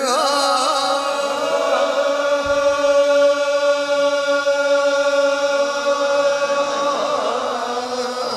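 Hindu devotional chant of Dev Narayan's name: a voice holds one long drawn-out note, its pitch wavering at the start and again near the end.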